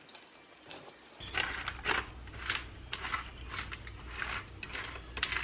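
A spoon scoops and spreads a chocolate-coated cereal-and-pretzel snack mix over parchment paper on a baking sheet, making crunchy rustling scrapes about twice a second. These start about a second in, over a low steady hum.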